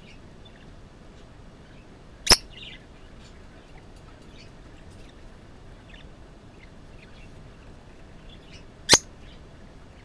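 A budgerigar in a wooden nest box making faint, short chirps now and then. Two sharp, loud clicks cut in, one about two seconds in and one near the end.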